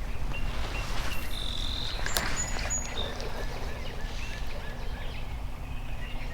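Several birds calling, with short high whistles and a run of evenly spaced chirps, over a steady low rumble of creekside ambience. There is one sharp click about two seconds in.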